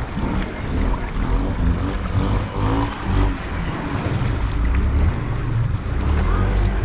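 Honda four-wheeler engine running as the ATV rides through creek water, with water churning and wind buffeting the microphone.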